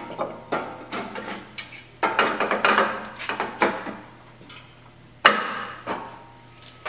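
Metal clinking, scraping and rattling as a heat-wrapped motorcycle exhaust front pipe is worked and slid into place, with one sharp metallic knock about five seconds in.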